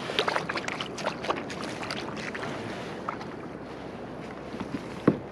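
A run of light knocks and clatter from gear being handled in a fishing kayak for the first couple of seconds, then a single sharp knock near the end, over a steady hiss of wind and water.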